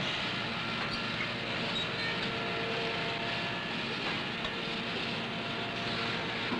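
Steady factory machinery noise: an even rumble and hiss with a few faint steady hums.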